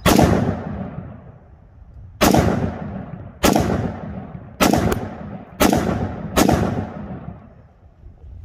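Six shots from a Ruger SFAR semi-automatic .308 rifle with a muzzle brake, firing 7.62 NATO M80 ball. There is a two-second gap after the first shot, then roughly one shot a second. Each sharp report is followed by a long echoing tail.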